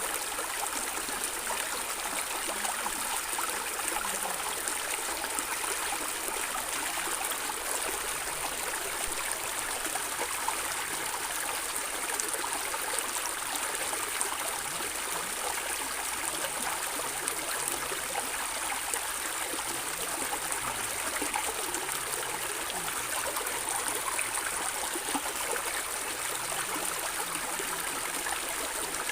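Water flowing and gurgling in a small stream: a steady, even rush sprinkled with small splashes and gurgles.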